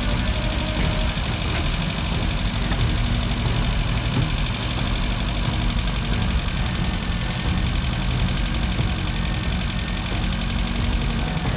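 Mitsubishi L300 van's engine idling steadily.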